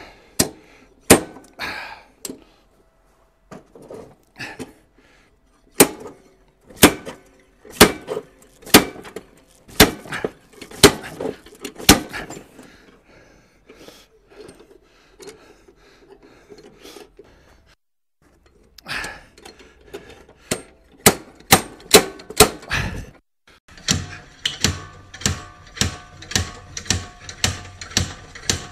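Slide hammer slammed repeatedly against its stop, a sharp metallic clank with each stroke, pulling on a seized blade hub stuck on a 2003 Honda HRR216 lawnmower's crankshaft. The strokes come about one to two a second, pause for a few seconds around the middle, then run faster, about three a second, near the end.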